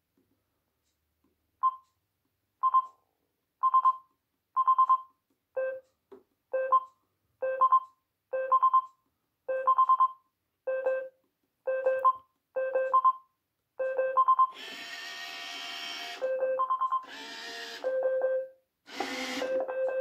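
Roomba 782e robot vacuum beeping in its built-in test mode: a short electronic beep about once a second as its touch buttons are pressed, the pitch switching between a higher and a lower tone. About 14 seconds in, a motor starts whirring in bursts between the beeps as the test runs the robot's motors.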